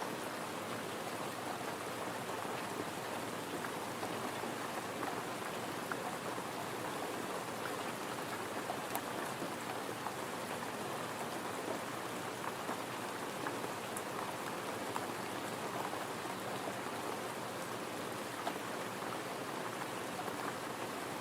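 Gentle rain falling steadily: an even hiss of rain with a few sharper individual drop ticks.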